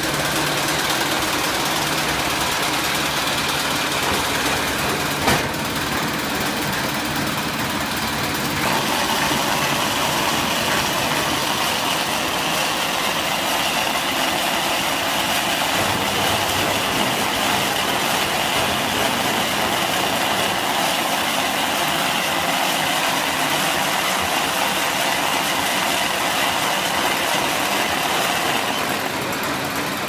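Combined silage round baler and bale wrapper running with a steady mechanical noise. There is one sharp click about five seconds in, and from about nine seconds the noise grows brighter and a little louder.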